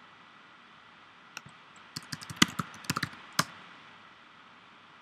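Computer keyboard typing: a single keystroke about a second and a half in, then a quick run of about ten key clicks from about two seconds in until about three and a half seconds in.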